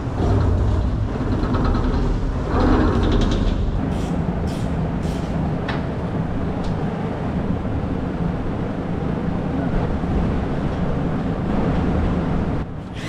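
A large engine running steadily, with a few light clicks about four to six seconds in.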